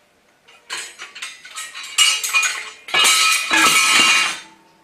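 Metal objects clattering and rattling: scattered clinks build into loud shaking about two seconds in, pause briefly, then a dense continuous rattle that stops shortly before the end. This is a noise-startle stimulus in a puppy temperament test.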